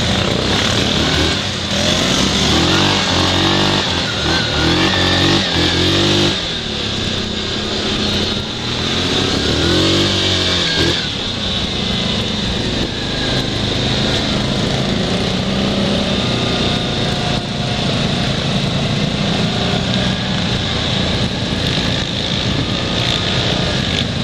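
Quad bike (ATV) engines running along a dirt trail, the engine note rising and falling in pitch as the throttle is opened and closed, most strongly a few seconds in and again around ten seconds in.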